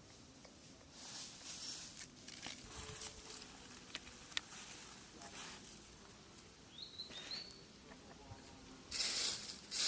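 Rustling and scattered small clicks, with two short rising high chirps about seven seconds in and a louder burst of rustling near the end.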